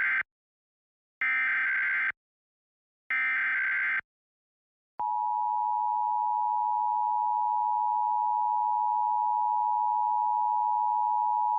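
Emergency Alert System test signal: the end of one SAME header data burst and two more complete bursts, each just under a second long with short gaps between. After about a second of silence, the steady two-tone EAS attention signal (853 and 960 Hz) starts about five seconds in and holds.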